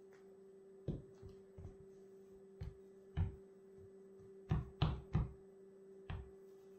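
Sneaker soles stepping and tapping on a wooden floor: about nine irregular soft thuds, three in quick succession a little past halfway, over a steady low hum.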